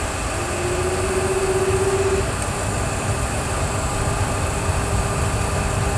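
Boeing 737 simulator's engine sound spooling up as the thrust levers are advanced to initial takeoff thrust: a steady low rumble, with a whine rising slightly over the first two seconds before the sound levels off, stabilized.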